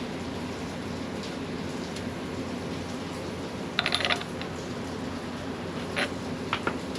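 Metal hand tools clicking and clinking during engine disassembly, with a short quick run of ratchet-like clicks about four seconds in and a few single clicks near the end, over a steady low hum.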